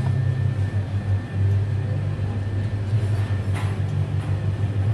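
Steady low hum of commercial kitchen equipment, with a light knock about three and a half seconds in.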